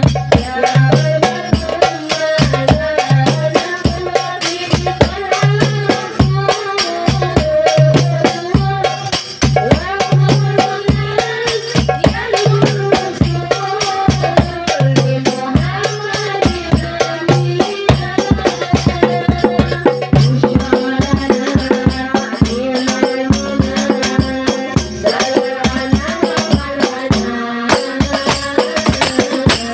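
Instrumental interlude of a sholawat song: a melody over a steady, busy rattling hand-percussion beat. The deep bass beat drops out about two-thirds of the way through, leaving melody and percussion.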